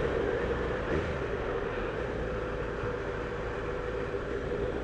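Motorcycle engine running at a steady cruise under wind and road noise, heard from on the bike.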